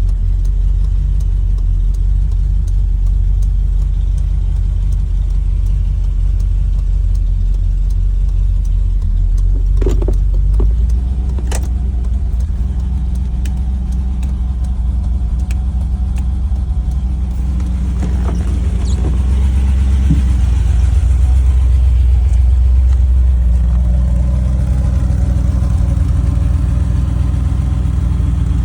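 Mercedes-Benz 350SL's V8 engine running, a steady low drone whose note shifts a little about eleven seconds in and again near twenty seconds, with a few sharp clicks around ten seconds in.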